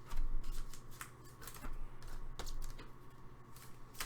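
Trading cards being handled and flipped through: a string of light clicks and rustles, busiest in the first half second.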